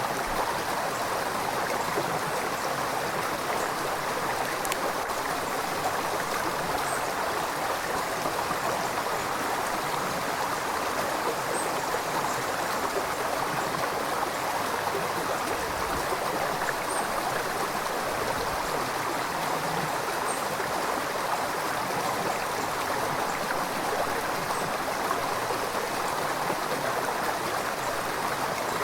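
A river's water rushing and gurgling steadily over stones, an even flow that doesn't change.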